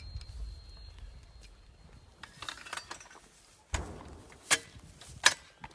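The last rumble of a recoilless gun's shot fades out. Then come scattered sharp metallic clinks and knocks as the crew handles the gun and its rounds, three of them louder and under a second apart in the second half.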